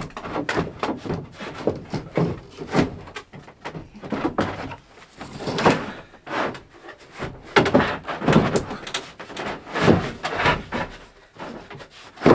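A wooden camper panel being slid and worked into place inside a pickup bed: irregular scraping of wood on wood, with several louder knocks as it bumps against the framing.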